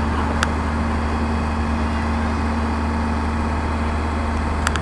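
Fire appliance's diesel engine running steadily, with a constant low hum and a steady tone, as it drives the aerial platform's hydraulics to bring the cage down. A couple of faint clicks, one about half a second in and one near the end.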